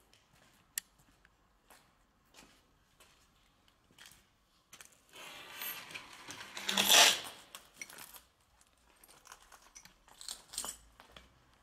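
Footsteps crunching over broken plaster, tiles and wood debris: scattered light steps, then a louder, longer scraping crunch about five to seven seconds in.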